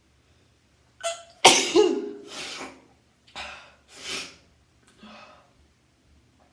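A person sneezing hard, a sneeze set off by tickling the nose with a twisted tissue: a short sharp intake about a second in, then the loud sneeze, followed by three shorter, breathy bursts that grow fainter.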